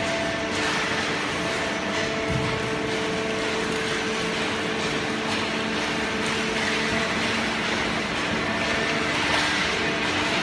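Automatic horizontal baler and its feed conveyor running: a steady machine hum of several tones over an even wash of mechanical noise, with faint rattles.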